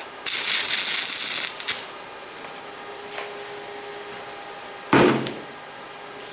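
Stick-welding arc crackling for about a second as a short tack weld is laid on a steel latch, then a single loud metallic knock about five seconds in.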